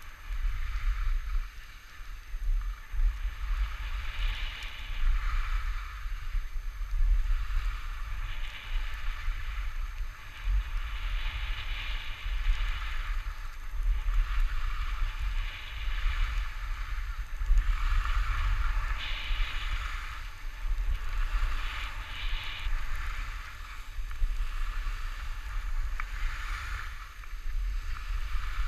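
Wind rushing over a GoPro's microphone during a downhill ski run, with a steady low rumble. Skis scrape over packed snow in a hiss that swells and fades every second or two.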